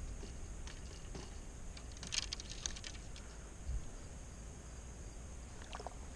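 Faint scattered clicks and ticks: a cluster about two seconds in, a soft low thump in the middle, and a few more clicks near the end.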